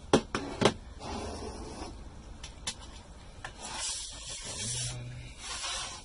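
Handling of a laptop's plastic case: two sharp plastic clicks in the first second as the battery is taken out, then a few lighter ticks and the case scraping and sliding on a wooden desktop as the laptop is turned round.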